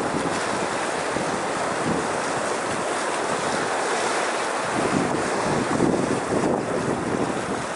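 Small sea waves washing in and splashing against shoreline rocks, a steady wash of surf, with wind buffeting the microphone.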